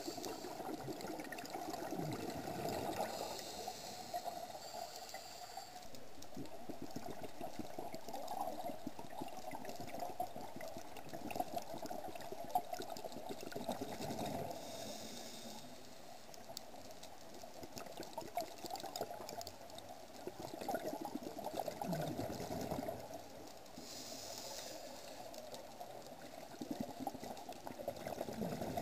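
Scuba diver breathing through a regulator underwater: a hiss on each inhale and a bubbly rumble of exhaust bubbles on each exhale, repeating about every ten seconds over a steady underwater rush.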